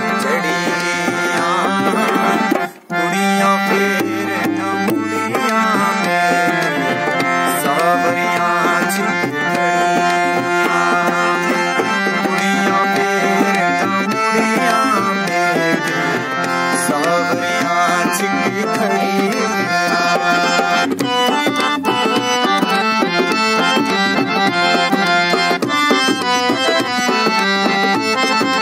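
Harmonium and tabla playing an instrumental passage of a Punjabi devotional song, the harmonium's reeds holding chords and running a melody over a steady tabla rhythm. The music breaks off for an instant about three seconds in.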